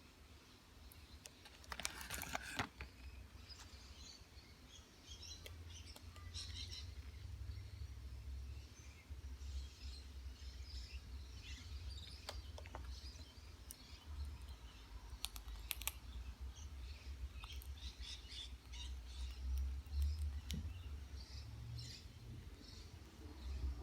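Pet parrot chirping softly and crunching chips with its beak: scattered sharp crackles among small high chirps, loudest in a cluster about two seconds in, over a low rumble.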